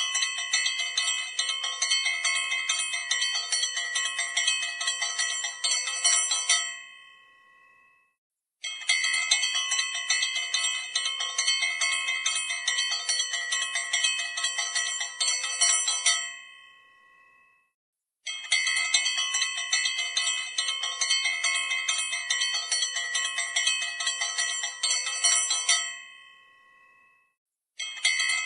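Puja bell ringing rapidly and continuously in long bursts of about seven seconds. Each burst fades away, and after a short gap the next begins: three full bursts, with a fourth starting near the end.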